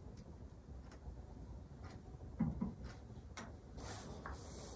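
A candle being lit: a few light clicks and two soft knocks, then short hissing scrapes near the end.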